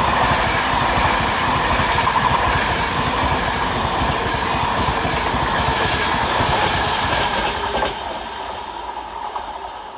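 InterCity 225 express, a Class 91 electric locomotive hauling Mark 4 coaches, passing close at speed, its wheels clattering over the rail joints in a fast, steady rhythm. The sound drops abruptly about eight seconds in and then fades.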